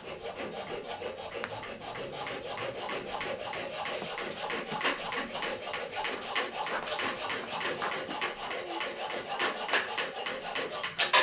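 Coping saw cutting a cope into wooden quarter round trim: fast, short back-and-forth rasping strokes, a few a second, with a louder sharp stroke right at the end.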